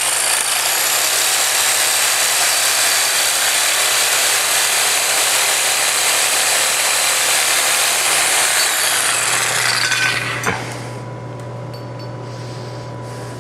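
Handheld propane torch flame hissing steadily as it heats a copper pipe joint for soldering. The hiss stops about ten and a half seconds in with a sharp click as the torch is shut off, leaving a low electrical hum.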